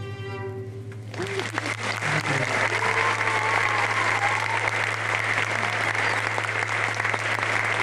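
The final held note of a fiddle and acoustic guitar tune rings and stops about a second in. Audience applause then breaks out and keeps going.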